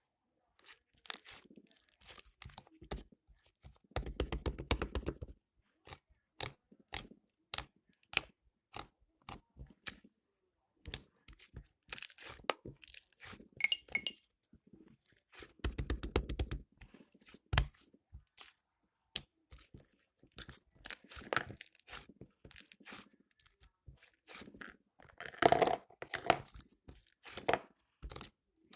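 Slime squished, stretched and pressed by hand, making many sharp crackling pops and clicks. There are denser stretches of crackling twice and a louder run of pops near the end.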